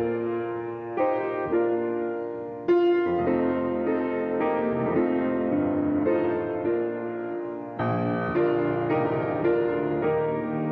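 Background piano music: notes and chords struck one after another, each ringing and dying away.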